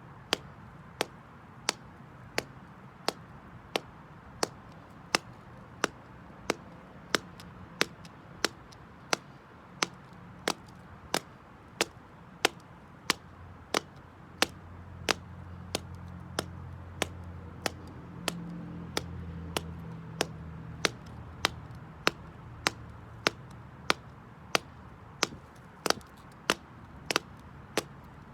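High-heeled slingback shoes clicking on concrete in steady, rhythmic steps, a little under two sharp heel strikes a second. A low hum rises in the middle and fades again.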